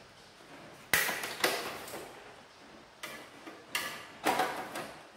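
Plastic snap-fit latches on a Canon LBP2900 laser printer's casing clicking loose as they are pried with a screwdriver: about five sharp snaps, irregularly spaced.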